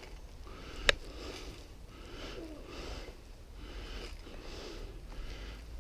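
A person's heavy breathing close to the microphone, in and out in a steady rhythm, with one sharp crack about a second in.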